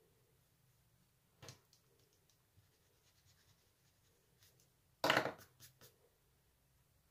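Faint scratching and ticking of a colored pencil sketching on paper. There is a light tap about a second and a half in, and a louder clatter of a few clicks about five seconds in as the drawing tools are handled.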